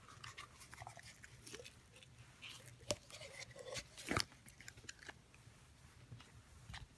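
Faint handling noises: light rustling and scraping, with two sharp clicks about three and four seconds in.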